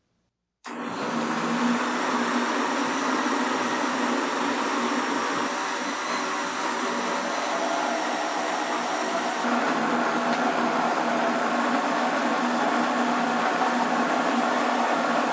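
Electric countertop blender switched on under a second in and running steadily, churning thick cream with chunks of frozen milk. Its tone shifts slightly about nine seconds in.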